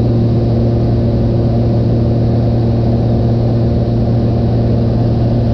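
Small high-wing floatplane's piston engine and propeller running steadily in cruise, heard from inside the cabin as a loud, even drone with a strong low hum.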